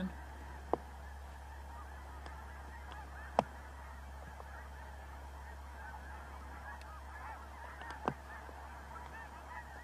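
A huge flock of geese honking and calling all at once, a dense, continuous chorus of overlapping calls heard at a distance. Three brief sharp clicks stand out: about a second in, a few seconds in, and near the end.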